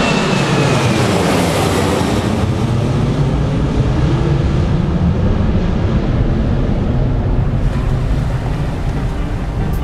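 Boeing 737-800's jet engines climbing away after takeoff: a roar whose whine falls in pitch in the first couple of seconds as it passes overhead, then a steady low rumble that slowly fades, with wind on the microphone.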